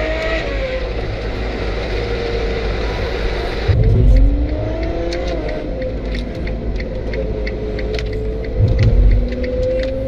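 Car engine accelerating while driving through a road tunnel, with road noise. The engine tone sags and then climbs again several times, and there are two short, louder low rumbles about four and nine seconds in.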